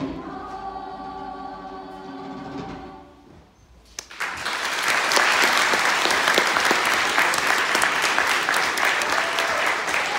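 A choir holds its final chord, which fades out about three seconds in. After a brief hush the audience breaks into loud applause.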